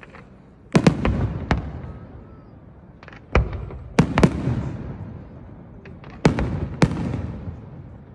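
Aerial firework shells bursting in the distance: about eight sharp bangs in clusters of two or three, each trailing off into a rolling, echoing rumble.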